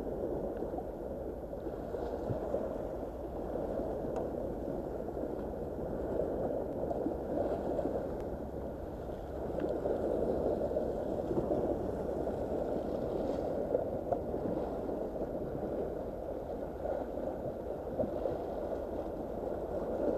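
Small sea waves washing and breaking against a rocky shore, a steady rushing and gurgling of water that swells and eases a little.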